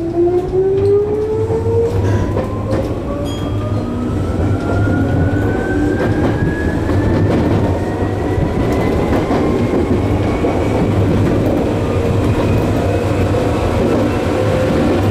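Tokyu 8500 series electric train accelerating, heard from the driver's cab: its traction motors whine, rising steadily in pitch as speed builds. Under the whine the wheels rumble, with clacks over the points and rail joints in the first few seconds.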